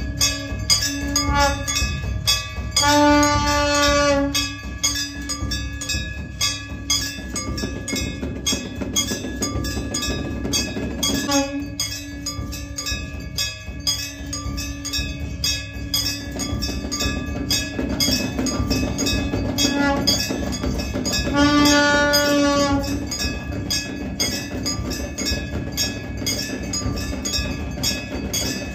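Aarti bells and drums beaten in a fast, steady rhythm of about four or five strokes a second. A long horn-like blast, typical of a conch, sounds about three seconds in and again past twenty seconds.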